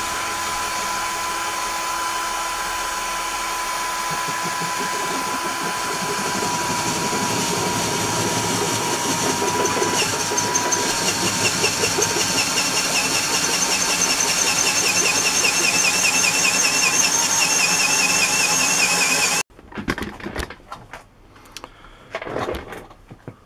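Cordless drill running steadily, slowly growing louder, with a higher warbling whine from about halfway. It cuts off abruptly, and the disc sander's electric motor then runs quietly, spinning the sanding disc.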